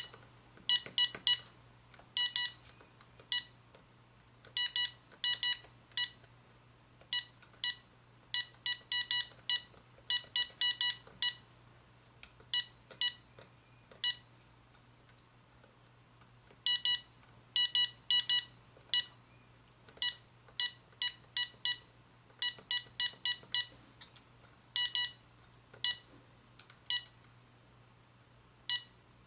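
Keypad confirmation beeps from a GE 900 MHz cordless phone handset as its buttons are pressed one after another, in irregular runs of one to five short high beeps over a faint low hum. The buttons are being tested to check that each key registers after its contacts were cleaned.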